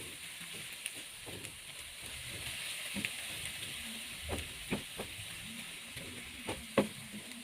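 Diced tomatoes, onions and egg sizzling in oil in a frying pan while being stirred, with a steady hiss and a few short knocks of the stirring utensil against the pan, several of them between about four and seven seconds in.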